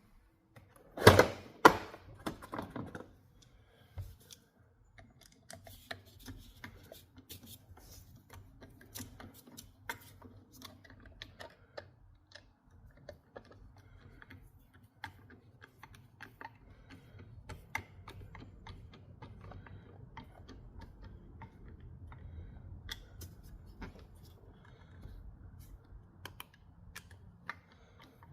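A brief clatter of loud knocks about a second in, then many small irregular clicks and taps as a Phillips screwdriver drives the butt-plate screws into a rifle stock.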